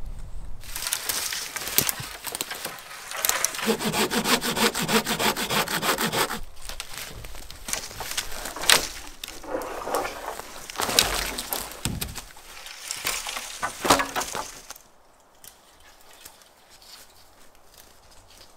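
Dry dead wood rubbing, rasping and cracking as branches are pulled and worked by hand, in one long stretch and then several shorter ones with sharp cracks.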